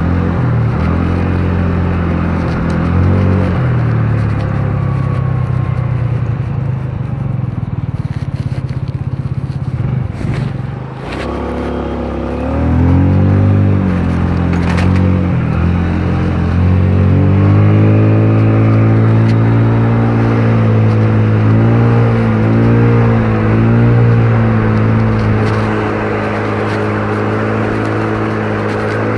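Motor scooter engine running under way, its pitch rising and falling with the throttle. It drops away briefly about ten seconds in, climbs again, then holds a steadier note near the end.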